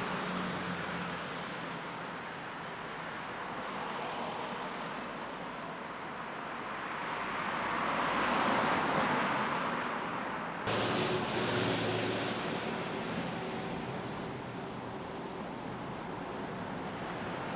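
Road traffic noise with wind: cars passing on the street, one swelling past and loudest about halfway through. The sound changes abruptly about two-thirds of the way through.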